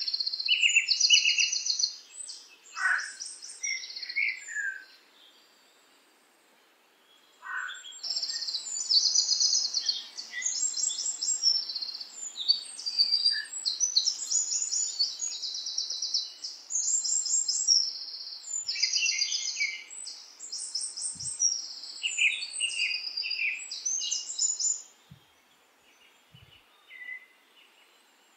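Songbirds singing in a string of high, rapid trilled phrases that overlap, with a couple of short falling whistles. The song breaks off for about two seconds some five seconds in, then dies away a few seconds before the end.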